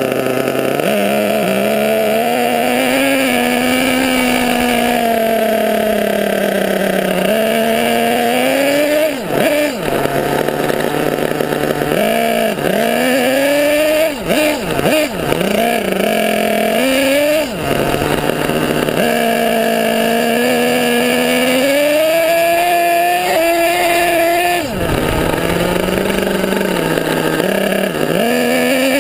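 HPI Savage radio-controlled monster truck's engine running and revving up and down as the truck drives, its pitch rising and falling with the throttle and dropping off sharply a few times in the middle.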